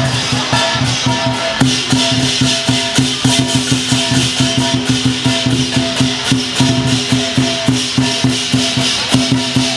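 Lion dance percussion: a large drum struck in a fast, steady beat, with cymbals clashing over it and steady low ringing tones underneath.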